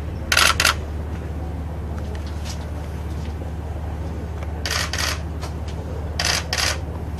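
Still-camera shutters firing in quick double clicks, three times, over a steady low hum.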